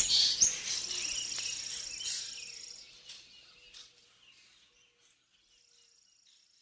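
Faint high-pitched chirping fades away over about three seconds, leaving near silence.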